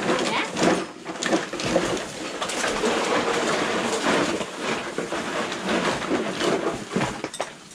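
Rustling and clattering of plastic sacks, clothes and household junk being rummaged through and stuffed into bags by hand, a busy run of crinkles and knocks.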